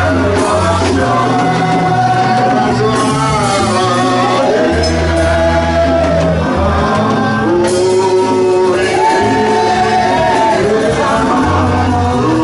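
Live church praise music: a sung melody with held notes over keyboard and a stepping bass line.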